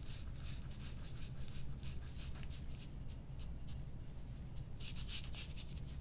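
Metal soft-tissue scraping tool rubbing over the skin of a shoulder in quick, repeated short strokes.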